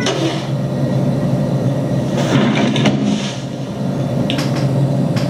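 Horror film soundtrack: a steady low rumbling drone, with a brief noisy swell near the middle and two sharp clicks near the end.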